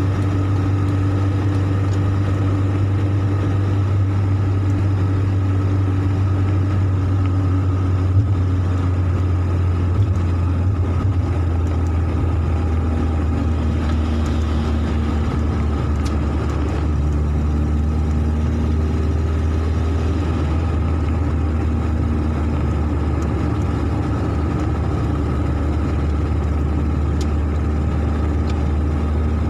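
Steady in-cabin drive noise from a Mercedes-Benz car cruising on a wet road: a low engine and road drone with tyre hiss. Two brief knocks come about eight and ten seconds in.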